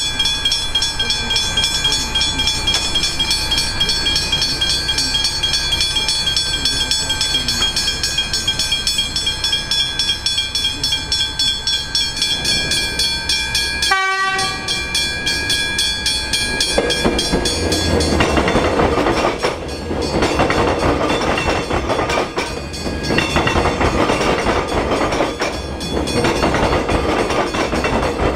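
Railway level crossing bells ringing steadily with a rapid repeated strike, broken briefly about halfway. From about two-thirds of the way in, an electric suburban train passes, its rumble and wheel clatter over the rail joints drowning the bells.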